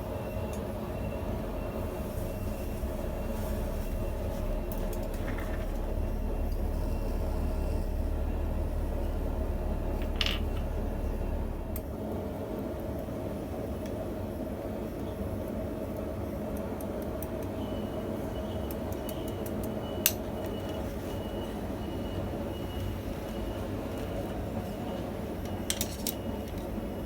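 A steady mechanical hum with a low rumble underneath that drops away about halfway through, and a few light clicks.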